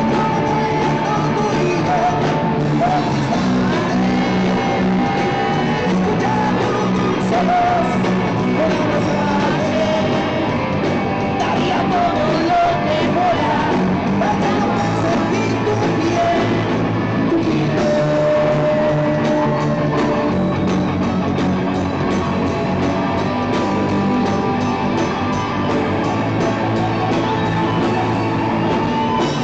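Live rock band playing: electric guitars through amplifiers with a male singer on microphone.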